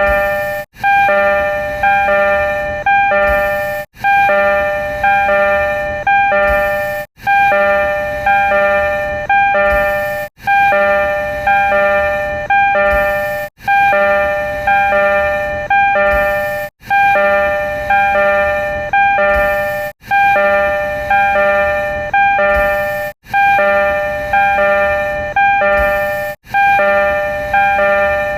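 Tokyo Metro 02 series (B-renovated) train door chime: a short electronic chime of a few notes, looped so it repeats about every three seconds, around nine times.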